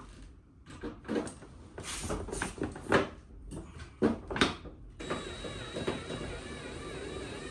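A series of clicks and knocks from tools and parts being handled, then from about five seconds in a power drill running steadily, its whine wavering slightly, drilling the stripped hole out for a bigger bolt.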